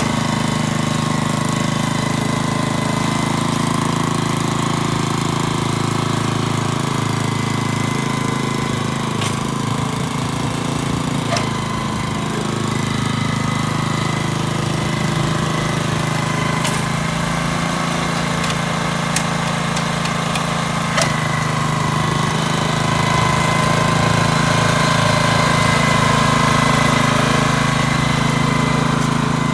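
The 6.2-horsepower engine of a Kubota TR70 walk-behind tiller running steadily at a constant speed, with a few brief clicks spaced through it.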